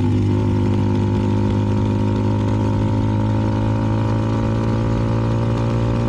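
CFMoto 300NK's single-cylinder engine with an aftermarket KO exhaust running at a steady cruising speed.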